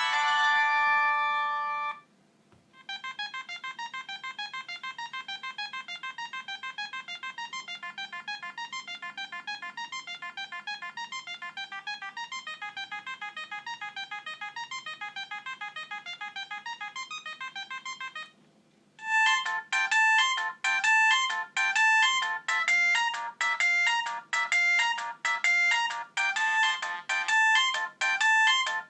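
Siemens MC60 mobile phone playing its ringtones one after another through its loudspeaker. One tune ends about two seconds in, a fast run of quick notes plays until about eighteen seconds, and after a short pause a louder, choppier tune begins.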